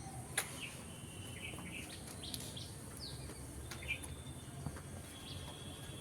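Birds chirping: scattered short calls and one falling note about three seconds in, with a sharp click about half a second in.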